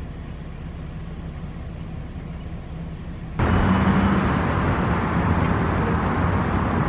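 Steady vehicle noise, a low hum that suddenly grows much louder about three and a half seconds in.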